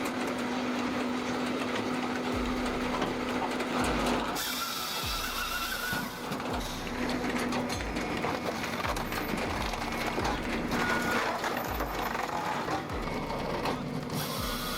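Hakki Pilke Easy 50 HD firewood processor at work, a steady mechanical hum with repeated low thuds as logs are cut and split. The sound changes abruptly about four seconds in.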